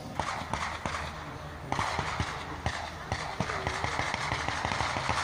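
Footsteps on rough ground, irregular soft knocks and clicks, over a steady outdoor background hiss.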